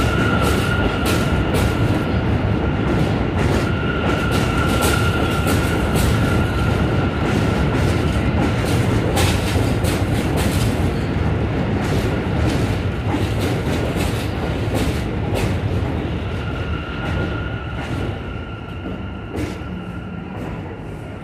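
NYC Subway L train rolling past close along an elevated platform: steady rumble of wheels on rail with frequent sharp clicks and a high steady whine that fades out midway and comes back, the sound easing down over the last few seconds.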